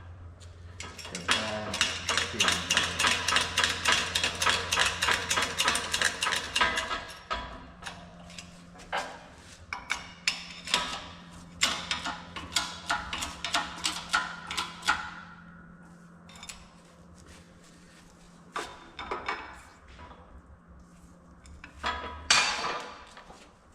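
Hammer tapping on the Unimog 416 CV joint and axle shaft parts, driving them back through during reassembly: a quick run of about five taps a second for several seconds, then slower single strikes, with a few more near the end.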